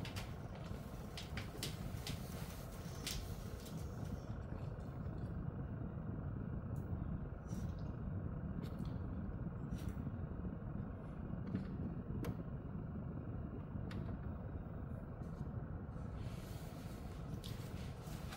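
Light knocks and clicks from a metal-framed elevated dog cot being set down on carpet and a dog getting onto its fabric bed, over a steady low background hum. After about four seconds only a few faint clicks remain.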